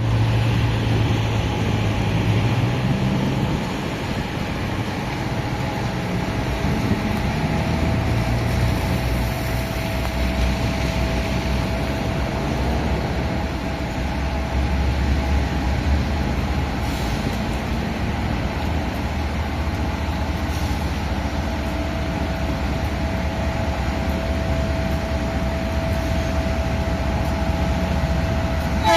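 GE C44-9WM (Dash-9) diesel-electric locomotive running, a steady low engine drone with a thin steady whine above it.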